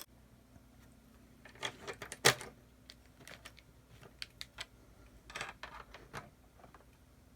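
Small plastic building bricks clicking and rattling as they are handled and pressed together, in scattered clusters of light clicks.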